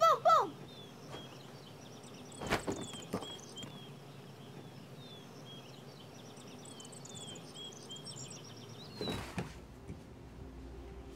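Quiet rural outdoor ambience with small birds chirping in short, repeated calls. Two soft knocks come about two and a half and three seconds in, and a brief rush of noise about nine seconds in gives way to a low, steady music drone near the end.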